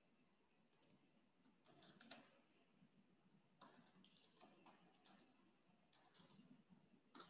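Faint computer keyboard typing in several short bursts of quick clicks, near-silent room tone between them.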